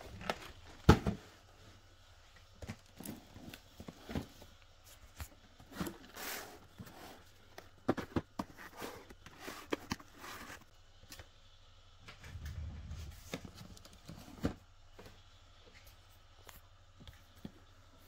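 Scattered handling noises: irregular clicks and taps, the sharpest about a second in, and a brief papery rustle about six seconds in.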